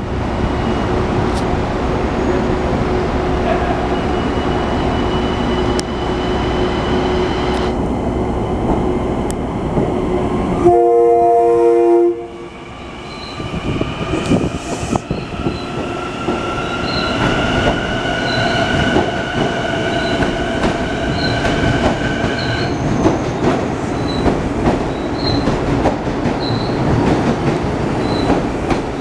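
Long Island Rail Road Kawasaki M9 electric train departing the platform. A steady hum first, then a loud horn blast of about a second, about eleven seconds in. Then the traction motors whine, rising in pitch as the train picks up speed, until the whine stops about twenty-two seconds in, with wheels clicking over rail joints as the cars pass.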